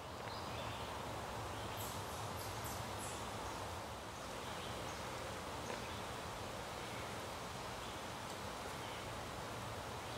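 Quiet woodland outdoor ambience: a steady, even hiss of air and leaves, with a few faint high ticks or chirps about two to three seconds in.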